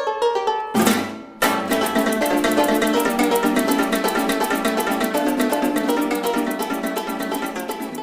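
Instrumental music of fast plucked strings, with a short rushing sound just under a second in before the full piece comes in.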